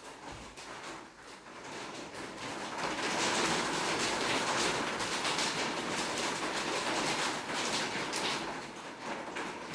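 Crinkling, rustling handling noise, like packaging being handled and unwrapped. It is a dense crackle of small clicks that grows louder over the first few seconds, then stays fairly steady.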